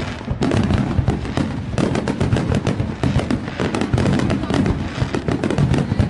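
Fireworks going off in a dense, continuous barrage: many sharp bangs and crackles in quick succession.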